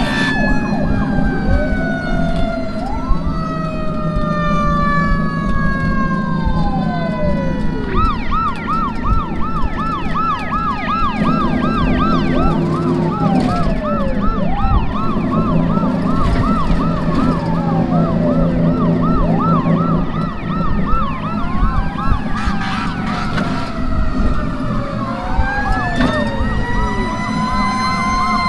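Several fire engine sirens sounding at once over the steady drone of a truck engine. One siren winds slowly down over the first few seconds and rises again near the end, a rapid yelp starts about eight seconds in, and other wails rise and fall throughout.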